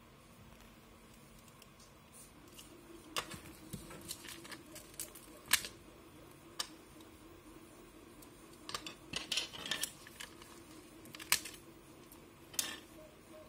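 Hands handling small black plastic tape-holder parts and peeling black adhesive dots off a backing sheet: scattered light clicks and taps, with a short crinkly rustle about nine seconds in, over a faint steady hum.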